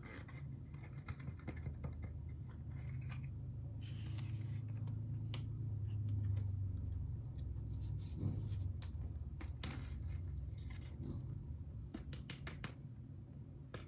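Scattered small clicks and scraping from hands handling a trading card and its plastic holder, working a white speck of debris out from inside, over a low steady hum.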